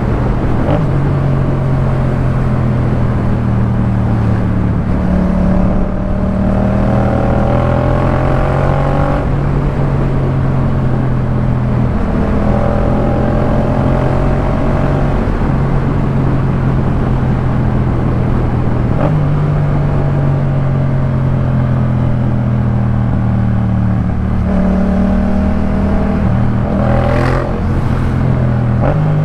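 Yamaha MT-07's parallel-twin engine running through a Jeskap K4 full exhaust system, under way on the road. The engine note rises gently and steps to a new pitch every few seconds as the rider works the throttle and gears. A short rush of noise comes near the end.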